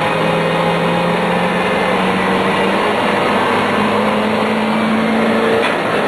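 A vehicle engine running steadily under a dense mechanical din, its hum stepping up in pitch about halfway through.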